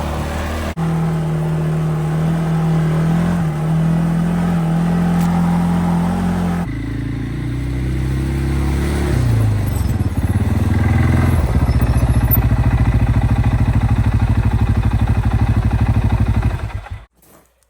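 A vehicle engine running in several edited stretches. Partway through, its pitch falls as it slows. Near the end it runs with a fast, even pulse, then cuts off abruptly.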